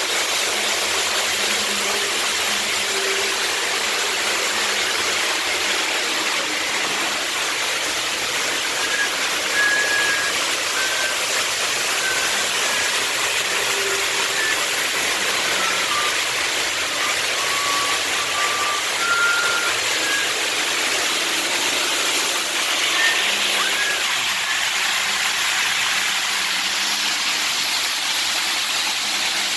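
Model trains running on the layout's track: a steady whir and rumble of motors and wheels, with brief faint squeals now and then through the middle.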